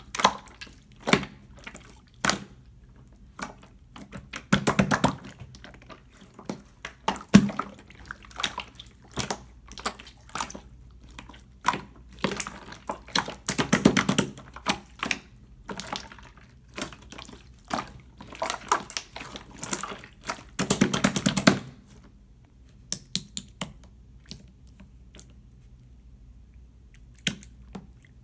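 Clear slime being squished and poked by hand: sharp wet clicks and popping, with several runs of rapid crackling and only scattered clicks near the end.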